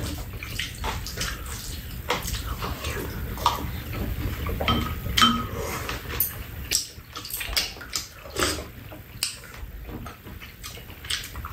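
Spoons and chopsticks clicking and scraping against bowls during a meal, in many short irregular taps, along with eating noises, over a steady low hum.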